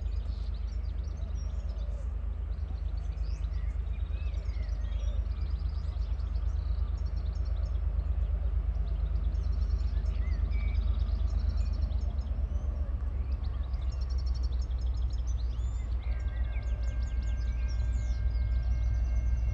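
Birds chirping and singing over a steady low rumble that slowly grows louder. About sixteen seconds in, a steady chord of several held high tones sets in and continues.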